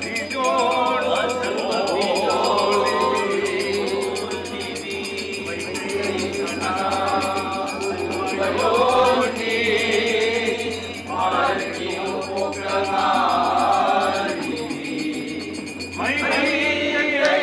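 A group of men singing together into a handheld microphone, in phrases of a few seconds with short breaks between them.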